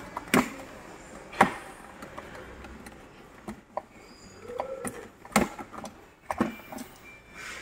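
Plastic cabinet panels being fitted together by hand: several sharp plastic clicks and knocks, the loudest about half a second, a second and a half, and five and a half seconds in, with quiet handling noise between.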